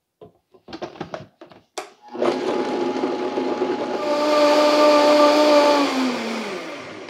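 Countertop blender blending diced figs in kombucha. A few clicks as the lid goes on and the control is set, then the motor starts about two seconds in and gets louder as it speeds up. Near the end it winds down with a falling whine.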